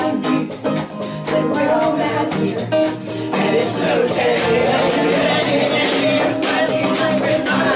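Live folk-rock band music with singing: acoustic guitar, a second guitar, a hand-held frame drum and a drum kit playing together.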